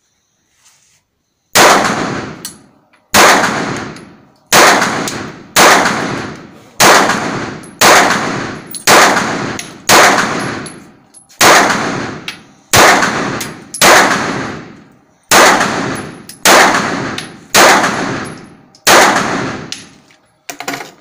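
Bul 9 mm semi-automatic pistol fired fifteen times in a steady string, about one shot a second, each sharp report ringing off in the reverberant indoor range. A lighter metallic click follows just before the end.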